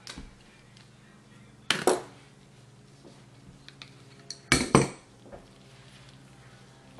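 Small metal freecoaster hub parts clinking as they are handled: two loud clusters of clinks, about two seconds in and again about four and a half seconds in, with a few lighter ticks between.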